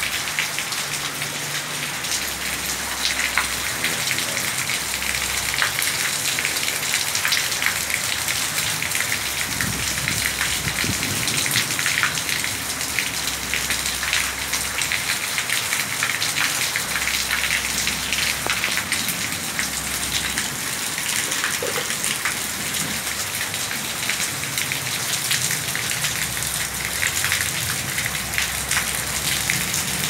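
Steady rain falling on wet concrete, an even hiss dotted with sharp ticks of individual drops.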